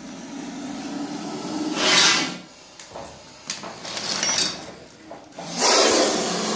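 Indian spectacled cobra hissing twice, two loud breathy hisses, the first about two seconds in and the second near the end. It is a defensive hiss: the snake feels threatened, and the more danger it feels, the louder it hisses.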